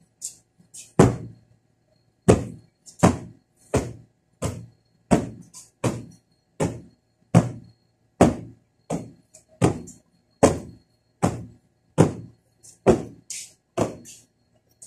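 Fabric floor cushion being beaten to knock the dust out: a steady run of dull thuds, about one every 0.7 seconds, with a faint rustle of cloth between strokes.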